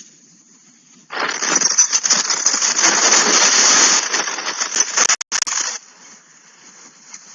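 A loud burst of even, hiss-like noise starts suddenly about a second in and lasts about four and a half seconds. It drops out for an instant near the end, then cuts off abruptly, leaving faint background noise.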